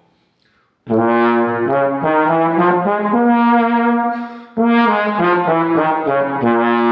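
Trombone playing the B-flat pentatonic scale (B-flat, D-flat, E, F, A-flat, B-flat) as an embouchure warm-up, in two phrases of stepped notes that start about a second in, with a short break between them.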